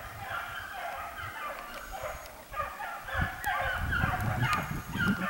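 A pack of hunting hounds baying on a running track: many overlapping, drawn-out calls that fall in pitch. The calls grow louder about three seconds in.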